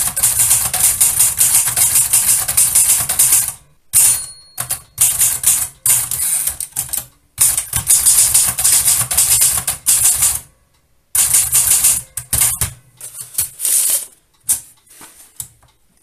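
A 1937 Adler Modell 32 portable typewriter being typed on: fast runs of key and typebar strikes lasting a few seconds each, broken by short pauses. There is one short ring about four seconds in. Near the end the strikes thin out to a few scattered clicks.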